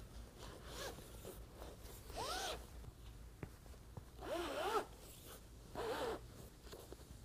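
The stitched P-strip on a Bestop Halftop windjammer's edge being pushed along the channel of an aluminium extrusion on the soft-top bow. It goes in short scraping strokes that squeak up and down in pitch, three main pushes a second or two apart.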